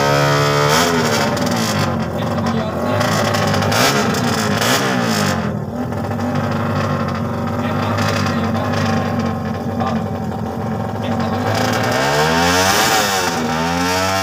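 Drag-race motorcycle engines revving at the start line: a high rev held and then dropping about a second in, steadier running through the middle, and quick rev blips rising and falling near the end.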